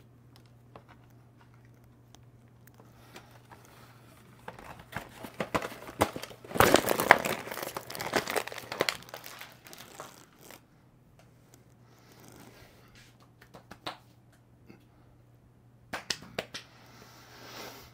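Plastic food wrapping being crinkled and torn open, in a dense crackling spell of several seconds starting about five seconds in, then a few scattered crackles and a shorter burst near the end.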